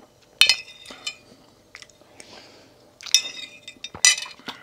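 A metal spoon clinking against a ceramic soup bowl several times. Each clink is short and ringing, the loudest about half a second in and twice near the end.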